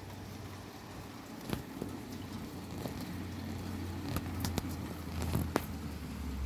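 Heavy rain falling, with several sharp drips or splats hitting close by. Under it a low steady motor hum, as of a vehicle engine, runs and then cuts off near the end.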